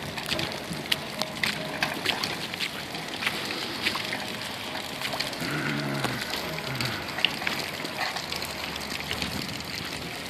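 Wet outdoor noise over waterlogged gravel and mud, scattered with many irregular sharp ticks and splats. About halfway through, a brief low droning tone falls in pitch.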